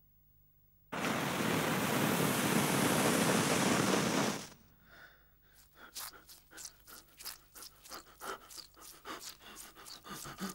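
Hot-air balloon's propane burner firing: a loud, steady hiss that starts suddenly about a second in and cuts off about three and a half seconds later. After it comes a regular run of footsteps through a field, roughly two to three a second.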